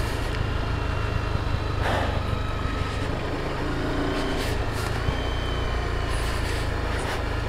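Sport motorcycle's engine running steadily while riding, under a constant low wind rumble on the microphone.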